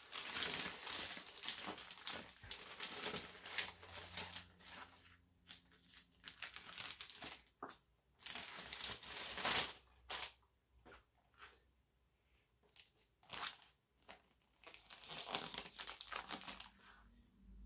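Clear plastic film crinkling and rustling in intermittent bursts as it is peeled off a model locomotive, with short quiet gaps between handlings.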